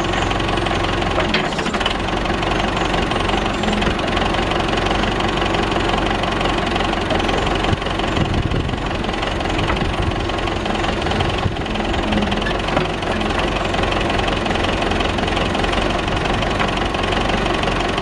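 Engine of a 1975 Case 580B Construction King backhoe running steadily while the rear backhoe boom and bucket are worked.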